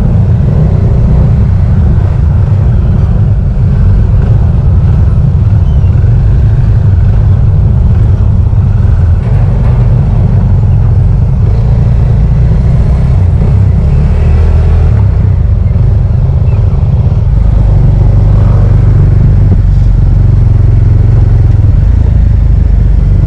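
Small motorcycle on the move, its engine running under a loud, steady low rumble of wind on the bike-mounted microphone, with other motorbikes close around.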